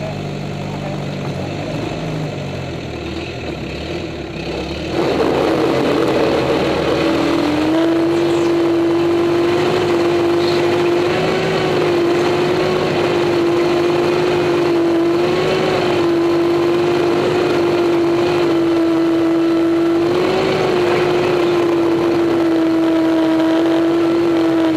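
Allis-Chalmers B tractor's four-cylinder engine heard from under the chassis, running at low throttle and then opening up loudly about five seconds in. It then holds a steady high note under load, wavering slightly, as the tractor pulls the sled down the track.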